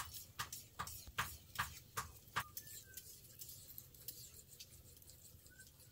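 Sharp, evenly spaced taps, about two and a half a second, for the first couple of seconds, then a few fainter scattered ticks.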